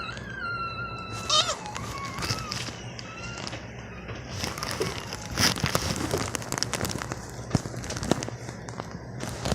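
A high held vocal squeal at the start, then slime being squeezed and worked by hand with many small crackly clicks and pops.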